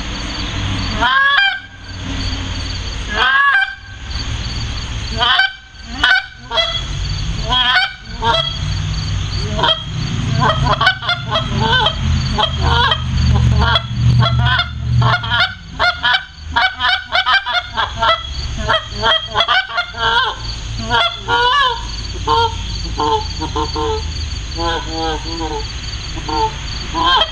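Tim Grounds Pro Super Mag goose call of bird's eye maple wood, blown by mouth to imitate Canada goose honks. A few separate honks come first, then fast strings of short notes from about ten seconds in, and shorter repeated notes near the end.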